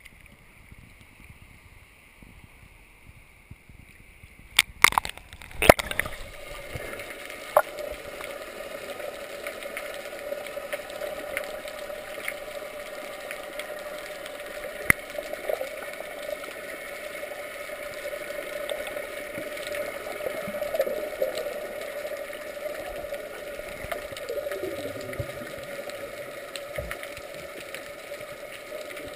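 Water splashing against the camera as it goes under about five seconds in, then a steady, muffled rush of water heard underwater with occasional gurgles.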